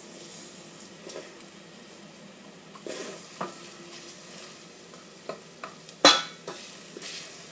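Arborio rice and onion sizzling gently in oil in a pot as the rice toasts for risotto, while a spoon stirs and knocks against the pot a few times, with one sharper clink about six seconds in.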